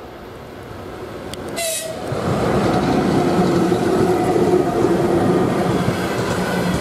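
A VL15 freight electric locomotive hauling a freight train passes close by. It gives a short, shrill signal toot about a second and a half in, then the rumble of wheels and a steady hum build loud as it goes past.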